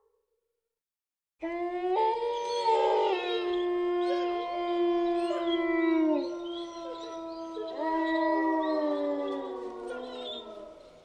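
A chorus of dogs howling: several long overlapping calls start about a second and a half in, some sliding down in pitch, and fade out near the end.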